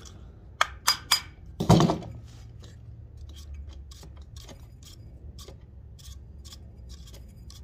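Metal parts of a diesel heater's fan assembly being knocked and clinked: a few sharp knocks in the first two seconds, the loudest about two seconds in with a dull thud, then lighter, irregular ticks. The knocks are a deliberate smash meant to cure the fan's grinding and scraping.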